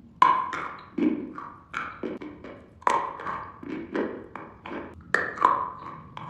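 Hard candy sticks being bitten and crunched: a run of sharp, brittle cracks, about three a second in an uneven chewing rhythm.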